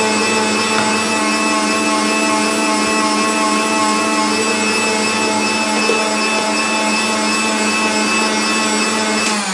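Electric meat grinder motor running steadily as it grinds peeled tomatoes, with a steady hum of several tones. Near the end it is switched off and its pitch starts to fall as the motor spins down.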